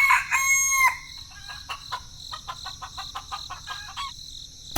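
A rooster crowing, its held call ending about a second in, followed by a run of short, quick clucks.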